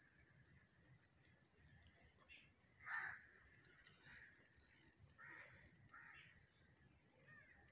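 Near silence with a few faint bird calls, the loudest about three seconds in.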